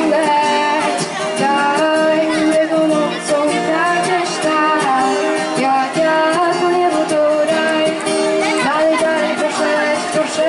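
A teenage girl singing a song into a microphone, accompanied by an acoustic guitar.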